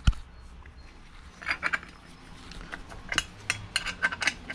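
A 13 mm combination wrench clinking against the wheel cylinder bolt and the steel VW Beetle brake backing plate as the bolt is snugged up. There is one sharp clink right at the start, then a run of light, irregular metal clicks from about a second and a half in.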